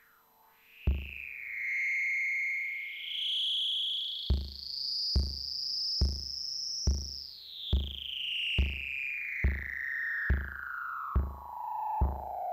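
Electronic synth music: a single synth tone slides up in steps to a high pitch, holds, then glides slowly down. A Korg Volca Beats kick drum hits once about a second in, then keeps a steady beat a little more than once a second from about four seconds in.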